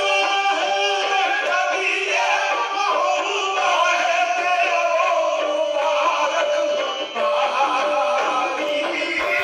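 Devotional song: a voice singing a drawn-out melody over instrumental accompaniment.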